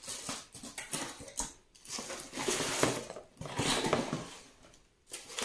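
Plastic wrap and cardboard packaging rustling and crinkling as a boxed electric teppanyaki griddle is unpacked, in irregular bursts that are busiest in the middle.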